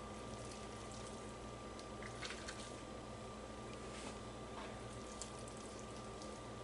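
Faint squishing and handling of raw stuffed pork tenderloin as hands tie it with butcher's twine, with a few soft clicks, over a steady background hiss.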